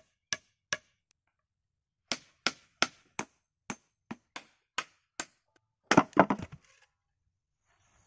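A hammer knocking wooden pieces into a log, about a dozen sharp single blows in short runs, followed about six seconds in by a brief clatter of wood.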